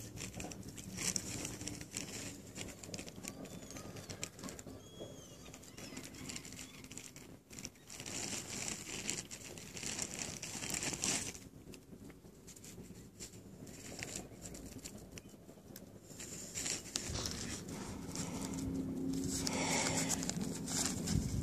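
Plastic bag crinkling and bread being torn by hand, in irregular bursts of rustling, with a few faint bird chirps about five seconds in.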